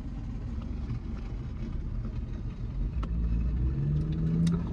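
Steady low rumble of a car heard from inside the cabin, with a few faint clicks and a short low hum near the end.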